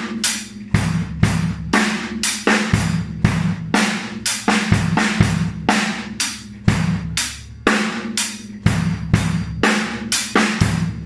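Drum kit playing a steady rock groove at a slow tempo: even eighth notes on the hi-hat, with bass drum and snare drum beats underneath.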